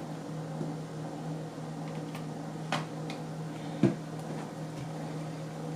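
Steady low electrical hum with a few light clicks and one sharper knock about four seconds in, the sound of objects being handled on a surface.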